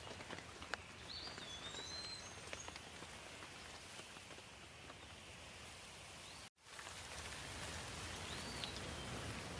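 Light rain falling, a steady soft hiss with scattered drops tapping close by. Short bird chirps come through about a second in and again near the end, and the sound cuts out completely for a split second about two-thirds of the way through.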